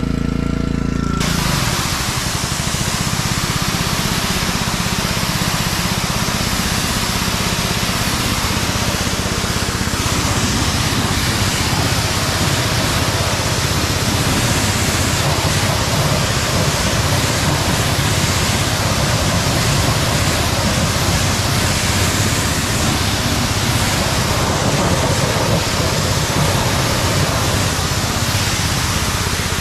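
Pressure washer gun spraying a steady high-pressure jet of water, starting about a second in, a loud even hiss over the hum of the running pressure washer.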